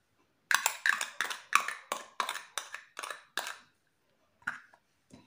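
A quick run of light, sharp taps, about three a second, then two more near the end: a small plastic cup being tapped to shake seasoning out into a bowl of flour.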